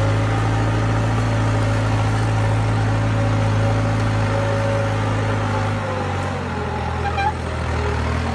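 New Holland 5630 tractor's diesel engine running steadily under load as it pulls a three-bottom mouldboard plough; about six seconds in, its note drops lower.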